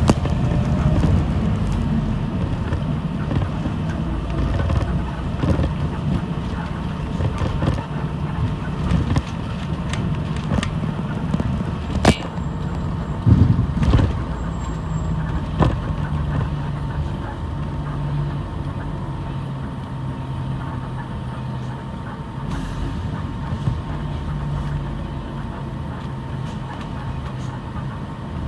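City bus in motion heard from inside the cabin: a steady engine and road drone with a low hum, broken by a few sharp knocks and rattles around the middle.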